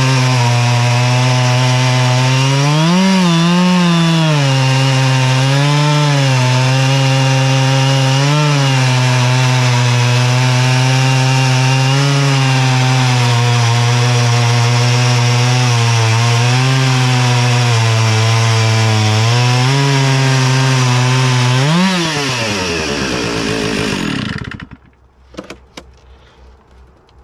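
Stihl two-stroke chainsaw on an Alaskan chainsaw mill, ripping lengthwise through an oak log under steady load, its engine pitch dipping and recovering a few times. About 22 seconds in the engine revs up briefly as the cut finishes, then winds down and falls quiet, leaving a few faint clicks.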